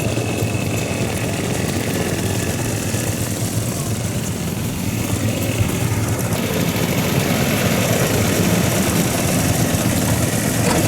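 Diesel engine of a 1969 Iseki KD900 walking tractor running steadily, getting a little louder about six seconds in.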